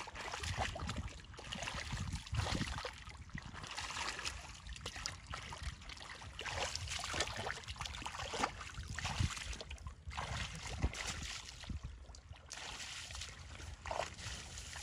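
Water sloshing and splashing in uneven bursts, with some trickling, as it is stirred by hand during hand fishing.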